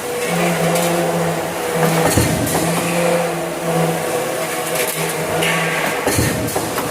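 Sheet-metal stamping press machinery running steadily, with two heavy impacts about four seconds apart.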